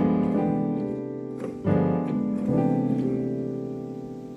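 Piano-toned keyboard chords: a held chord fades, and a new chord is struck about a second and a half in and left to ring down. A demonstration of a G7 flat 9 polychord (an F diminished triad over G) resolving to C.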